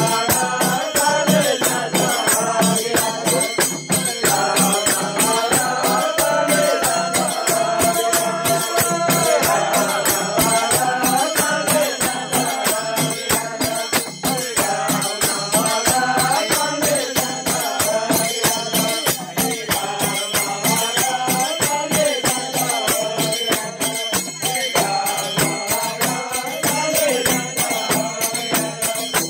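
Group of men singing a Palpali bhajan, a Nepali devotional folk song, together, over a fast steady beat of small brass hand cymbals and a hand drum.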